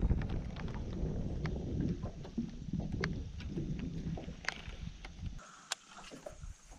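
Wind rumbling on the microphone, with scattered light clicks and taps from a baitcasting rod and reel being handled. The rumble drops away suddenly about five seconds in.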